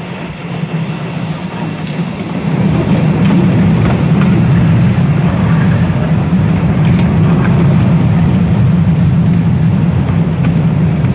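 Postojna Cave's open-carriage tourist train running on its track, heard from a seat aboard: a steady low rumble that grows louder about two and a half seconds in and then holds.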